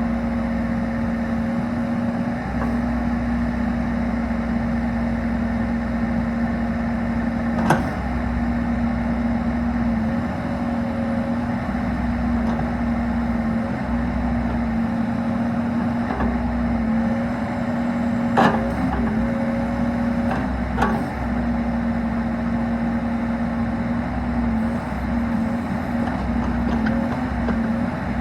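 Bobcat E45 compact excavator running steadily with an even hum, and three sharp knocks, one about a third of the way in and two close together past the middle.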